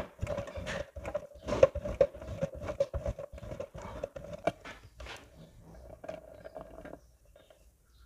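A block of mozzarella cheese grated on a box grater: quick rasping strokes, two or three a second, that stop about seven seconds in.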